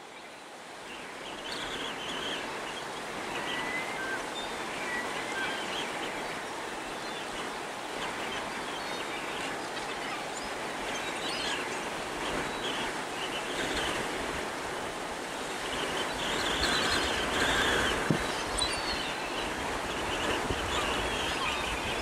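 A large flock of gulls calling, many short cries and brief squeals overlapping over a steady background rush, with one short knock late on.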